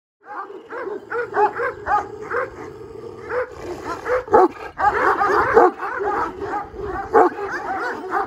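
Several dogs barking and yelping, many short calls overlapping one another in quick succession.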